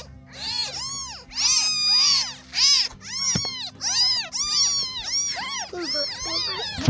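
Several newborn kittens mewing, many high rising-and-falling cries overlapping one after another with hardly a pause.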